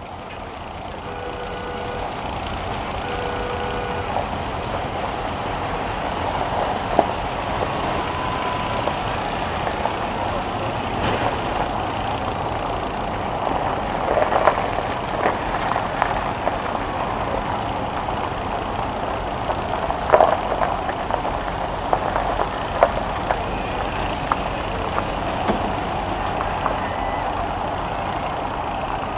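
Heavy engines running steadily, with two short beeps about a second apart near the start. Several sharp knocks of impact come later: school buses colliding in a demolition derby.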